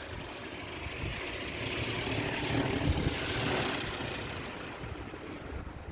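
Gale-force wind howling in a strong gust: a rushing noise that builds for about two seconds, then dies away.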